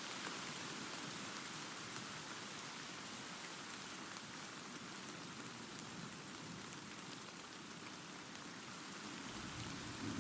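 Steady rain falling, an even hiss flecked with small drop ticks. Near the end a low rumble of distant thunder starts to build.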